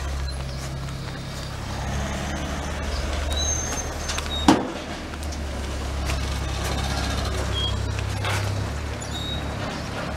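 Steady low rumble of road traffic, with one sharp click about four and a half seconds in.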